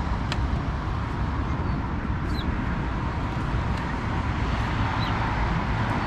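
Steady road-traffic hum and rumble, with a few faint short high squeaks about every second or two.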